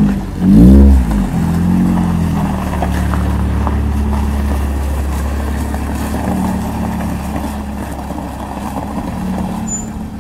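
Lada Priora engine blips briefly about half a second in, then settles to a steady idle with a rattling knock. The owner puts the rattle down to a loose, wobbling power steering pump pulley.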